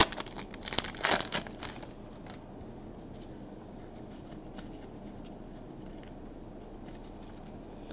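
Crinkling and tearing of an Upper Deck hockey card pack's wrapper as it is ripped open, loudest in the first two seconds, then faint rustling as the cards are slid out and handled.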